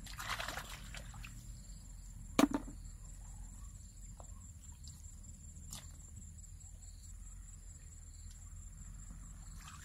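Faint splashing and rustling from hands working in shallow muddy water and dry grass at a bank, with a single sharp knock about two and a half seconds in, the loudest sound, and a smaller click later. Between these, a low steady outdoor background with a thin, steady high tone.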